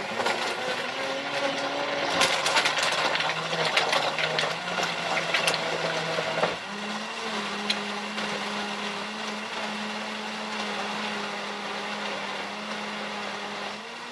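Cleanblend 1800-watt commercial blender running on a smoothie with frozen berries. For the first six seconds or so its blades clatter and crackle through the frozen fruit. Then the motor's pitch steps up and settles into a smooth, steady whir as the mix turns liquid.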